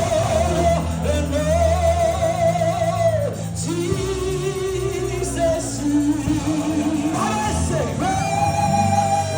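Live worship music: a voice sings long held notes with vibrato over a band with sustained bass.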